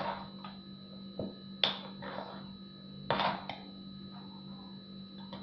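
A spoon stirring thick ground-flaxseed paste in a glass jar, with a few short scrapes and knocks against the glass; the two loudest come about one and a half and three seconds in. A faint steady hum runs underneath.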